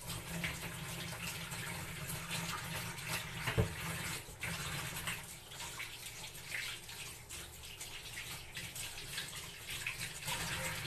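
Water running from a kitchen tap into the sink as things are washed under it, with a single knock about three and a half seconds in.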